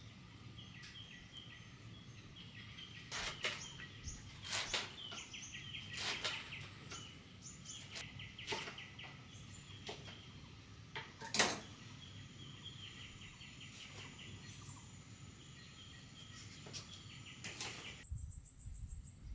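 A kitchen knife knocking now and then on a wooden chopping board, about seven sharp knocks spread out, the loudest a little past the middle, over steady high chirping of birds.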